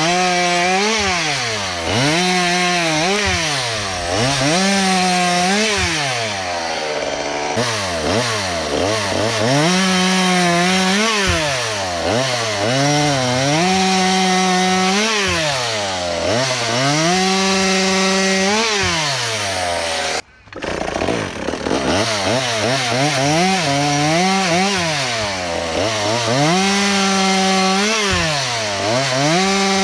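Small two-stroke chainsaw running on methanol, revving up and dropping back again and again, holding steady at full throttle for a second or two at a time while cutting logs, without leaning out. There is a brief break about two-thirds of the way through.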